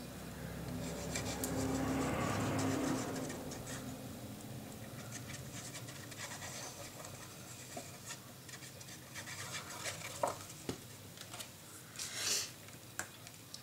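Hands working with paper and card: faint rustling and small taps as glue goes on a paper panel, and a short scraping rub near the end as a card is pressed and smoothed down onto cardstock.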